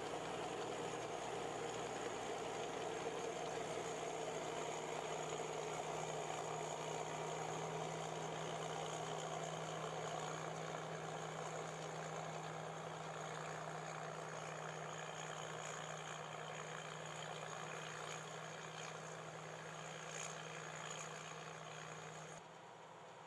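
Tracked combine harvester running steadily as it cuts, its engine giving a constant hum with a steady low tone, growing gradually fainter as the machine moves off. The sound drops away suddenly near the end.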